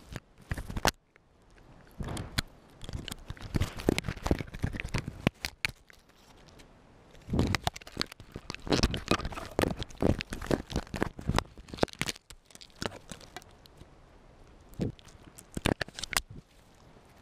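A fox gnawing on a GoPro camera held in its jaws: teeth crunching, clicking and scraping on the plastic in bursts with short pauses, heard from the camera itself right at the teeth.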